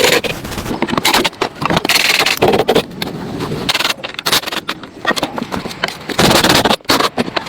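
Irregular scraping and knocking, in loud rough strokes with short gaps between them.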